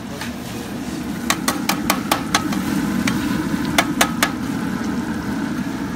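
Metal cooking utensil clinking against a pot on the grill: six quick strikes, a pause, then three more. A steady low rushing noise runs underneath.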